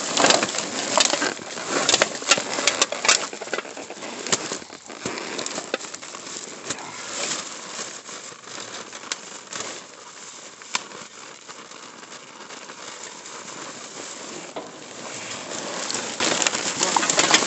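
Plastic garbage bags rustling and crinkling as they are pushed about and handled. The rustling is busiest in the first few seconds and again near the end, with a quieter stretch in the middle.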